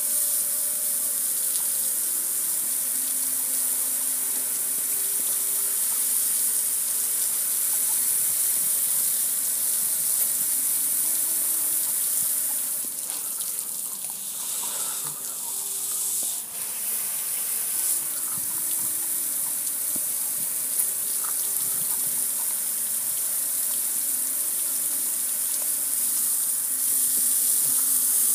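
Hose water spraying onto a metal gas grill: a steady hissing splash of water running off the grill. It eases off briefly about halfway through.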